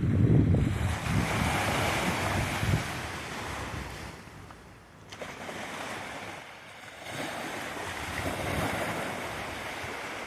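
Sea waves breaking and washing ashore. A wave crashes at the start, the wash dies down about halfway through, and the next wave builds up in the second half.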